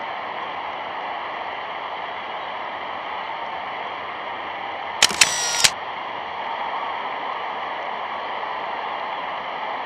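Steady hiss and rumble of an old 1930s newsreel soundtrack, with no voice or music. About five seconds in comes a sudden harsh burst of about half a second with three sharp peaks.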